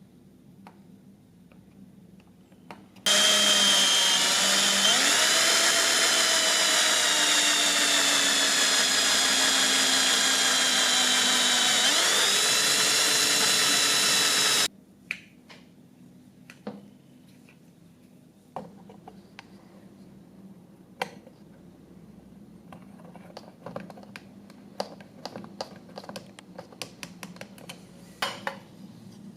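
A small electric power tool runs at high speed for about twelve seconds, starting and stopping abruptly, its pitch dipping twice along the way. Afterwards there are scattered light clicks and taps.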